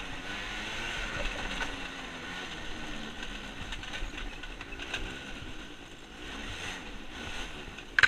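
Motocross dirt bike engine running under way on a trail, its pitch rising and falling with the throttle over a rough rushing noise. A sudden sharp noise comes at the very end.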